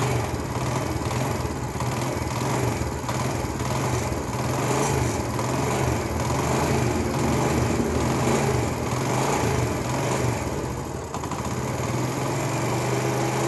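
Honda CD70's small four-stroke single-cylinder engine running steadily just after starting, circulating oil through a newly fitted oil cooler whose return pipe is left open so the oil can flow out.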